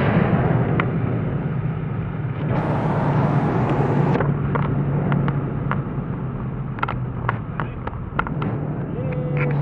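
Cabin sound of a VW Bora's 1.8T turbocharged four-cylinder with a 3-inch exhaust: loud under load at the start, easing off within about two seconds into a steady low cruising drone. A hiss sounds about two and a half seconds in, and a series of light ticks comes in the second half.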